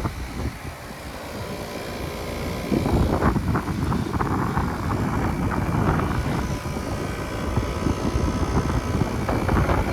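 Outdoor heat pump unit running in heating mode: the condenser fan whooshes over a steady compressor hum, growing louder about three seconds in.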